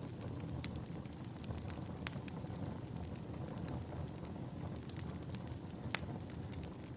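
Wood fire burning in a fireplace: a steady low rumble with scattered sharp crackles and pops, a few louder pops about two seconds in and near the end.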